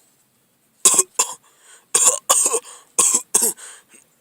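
A person coughing, about six short loud coughs in three pairs.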